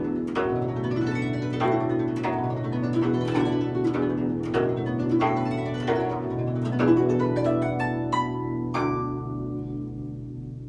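Guzheng played with fingerpicks: a run of plucked notes over a ringing low string, ending on a high note that rings out and fades near the end.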